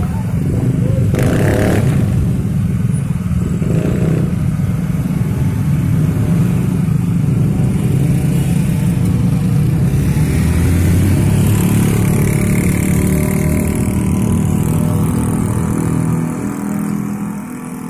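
Several motorcycle engines running and revving as the bikes pull away across railway tracks, with a minibus among them. The engine noise dies down near the end as the traffic thins.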